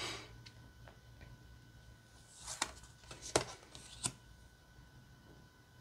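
Oracle cards sliding and tapping as a card is moved from the front of the deck to the back: a soft swish, then a few light clicks with short swishes between about two and a half and four seconds in.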